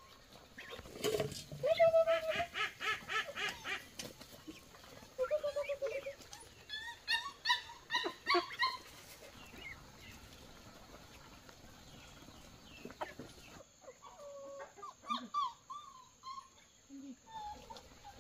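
Puppies whining and yelping in clusters of short, high-pitched calls, busiest in the first half; the calls thin out after about nine seconds and pick up again briefly near the end.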